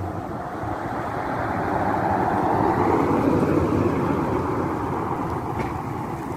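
Jeep Wrangler towing a small off-road trailer driving past on a paved road: tyre and engine noise swells to a peak about three seconds in, then fades as it pulls away.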